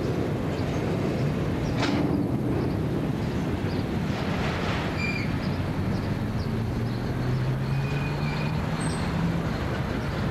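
A long rake of empty steel coal hopper wagons rolling past: a steady rumble and clatter of wheels on rail, with one sharp click about two seconds in and a few brief high squeals.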